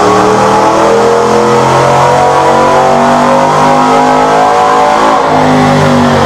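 Cammed 2014 Chevrolet Silverado 5.3 L V8, breathing through long-tube headers and a catless Y-pipe, running hard under load on a chassis dyno during a power pull. The engine note holds loud and continuous, with a shift in its low tone about five seconds in.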